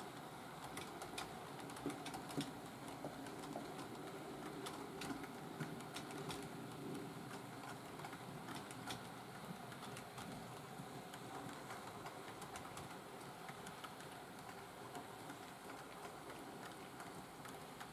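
Model railway coaches and car-transporter wagons rolling slowly along the track: a faint steady rolling noise with scattered light clicks from the wheels on the rails.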